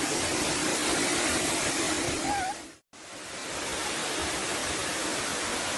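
Waterfall: a steady, even rush of falling water. It drops out for a moment about three seconds in, then comes back.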